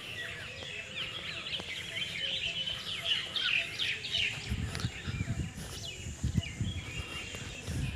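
Birds chirping and twittering in woodland, many short quick calls overlapping, busiest in the first half. About halfway in, a low uneven rumble joins underneath.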